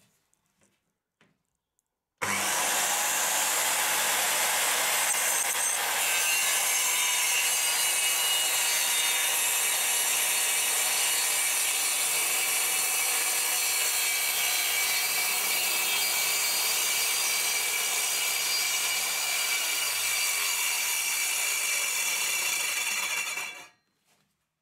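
Makita 5604R circular saw, blade tilted to a bevel, ripping a long pine strip along the grain. The steady cutting noise starts suddenly about two seconds in and stops abruptly just before the end.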